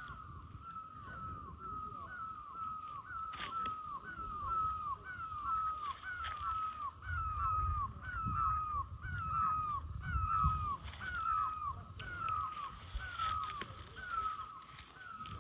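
A bird repeating the same short call, each note dropping in pitch, at an even pace of just under two a second, over a low rumble.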